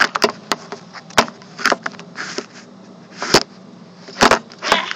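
Phone handling noise: irregular sharp clicks and knocks with short rubbing rushes as fingers and hands move on the phone near its microphone.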